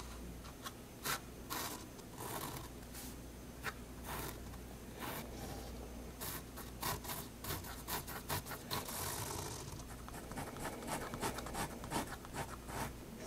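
Staedtler 0.3 mm pigment liner scratching across sketchbook paper in separate straight strokes, then a run of short, rapid hatching strokes near the end.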